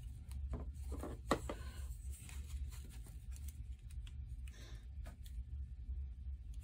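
Plastic model kit parts and wires being handled and fitted together: light rubbing and scraping with small clicks, the sharpest about a second and a half in, over a steady low hum.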